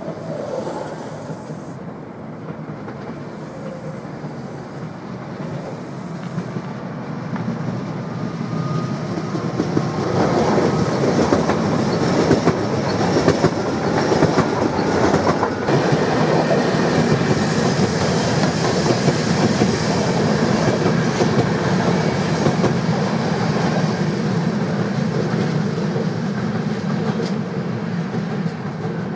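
Passenger train of coaches running past on the main line, its wheels clattering over rail joints. It grows louder about ten seconds in and stays loud as the coaches roll by.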